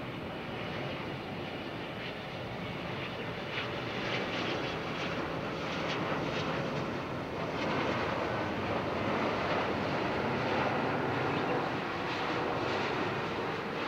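Boeing 777-200ER's GE90 turbofans on final approach, a steady jet rush that grows gradually louder as the airliner comes in to land.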